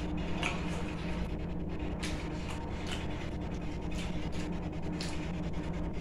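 Fingers mixing rice and mashed vorta in a plate by hand: soft scraping and light clicks against the plate, over a steady low hum.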